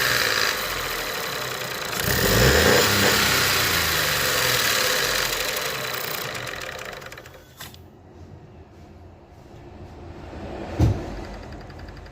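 Ford 1.0 EcoBoost three-cylinder engine running, with a brief rev about two seconds in and a noise the owner attributes to the variable cam timing; the engine sound then dies away about seven seconds in. A single thump near the end.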